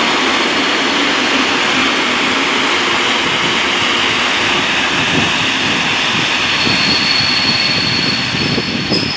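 Koleje Mazowieckie EN57AKM electric multiple unit running in the station, giving a loud, steady roar. A thin high whine joins it about two-thirds of the way through.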